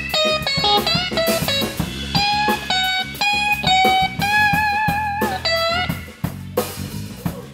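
Live blues band of electric guitar, electric bass and drums playing an instrumental passage. The lead guitar plays notes that bend and slide, and holds one long note with vibrato about four seconds in, over the bass line and drum beat.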